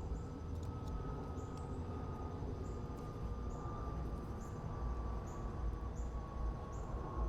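Outdoor background: a steady low rumble with a faint thin whine that slowly falls in pitch, and a short high-pitched chirp repeating about once a second.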